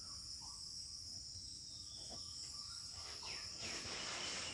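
Faint, steady high-pitched insect chirring in the background, with the soft scratching of a pen writing on paper in the second half.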